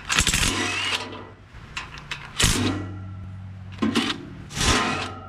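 Cordless impact driver running in short bursts as it backs bolts out of a sheet-metal panel on an excavator. The first burst lasts about a second, and three shorter ones follow in the second half.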